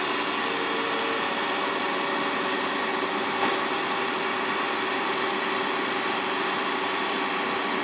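Case IH MX280 tractor engine running steadily under heavy load as it drags a loaded dump trailer through mud that gives it no grip, with one brief knock about three and a half seconds in.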